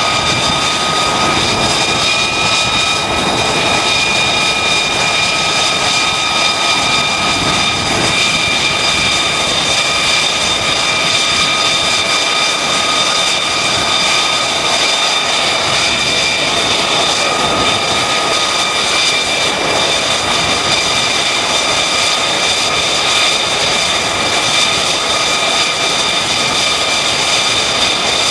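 F-35C's single turbofan jet engine running at idle on the flight deck: loud, steady engine noise with a high whine that holds one pitch.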